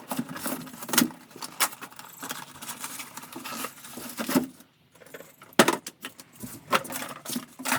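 Irregular clicks, knocks and light rattles of tools and their packaging being handled and unboxed, with a brief lull near the middle.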